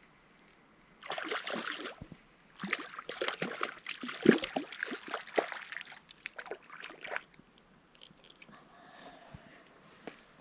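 Water splashing and sloshing in two spells: a short one about a second in, then a longer, louder one from just under three seconds to about seven seconds, fading to scattered small drips and ticks.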